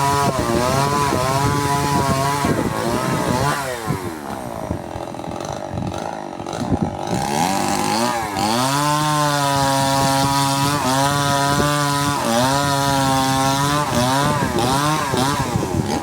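Two-stroke chainsaw running at full throttle, its pitch dropping to a low idle for about four seconds in the middle, then revving back up to full speed with a couple of brief dips as it is let off.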